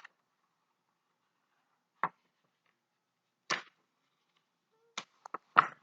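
Short sharp paper rustles and taps from a picture book being handled while a page is turned: a few single ones spread out, then a quick cluster near the end.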